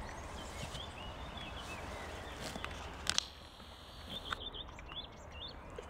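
Horse cropping grass, with a few short tearing clicks, the loudest pair about three seconds in. Small birds chirp in the background.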